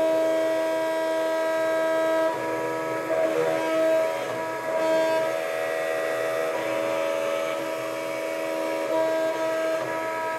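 Background music of sustained synthesizer chords, each held for a few seconds before changing to the next.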